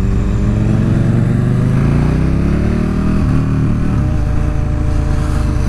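Yamaha R6 sport bike's inline-four engine under throttle on a track straight, its note climbing for about three seconds, then briefly breaking and running on steadier. Wind noise rushes over the helmet camera.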